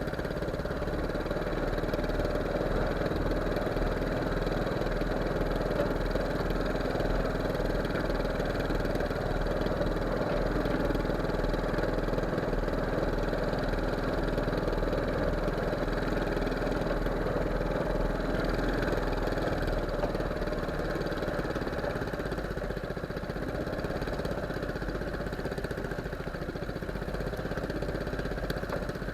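A fishing boat's engine running steadily at low revs, with no change in pace.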